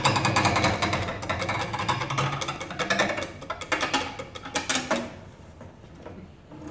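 Cello played with fast, rattling percussive strokes, a steady low note sounding under them for the first couple of seconds. About five seconds in, the playing drops away to something much quieter.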